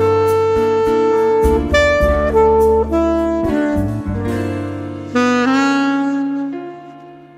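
Background music: an instrumental melody of held notes over a bass line. The bass drops out about two thirds of the way through and the music fades near the end.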